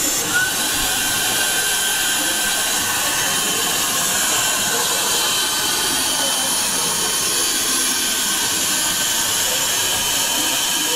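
Suction pump of a suction-cup prize machine running steadily, a loud even hiss with a faint whine that rises slightly about half a second in, while the suction head holds a candy packet and carries it to the chute.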